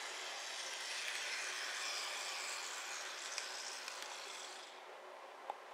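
Motorized Tomytec Railway Collection N-gauge model of a Hankai Tramway Mo161-type tram running along the layout track: a steady whirring hiss of its small motor and wheels on the rails. The sound dies away about three-quarters of the way through, then comes a faint click.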